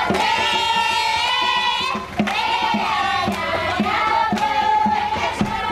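A group of children singing together in held, chanted notes, with steady rhythmic hand clapping keeping the beat.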